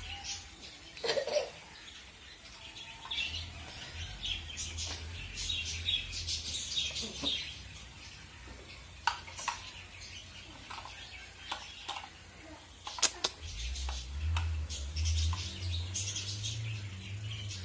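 Birds chirping in quick, repeated short high calls throughout, with a low rumble in two stretches and a sharp click about thirteen seconds in.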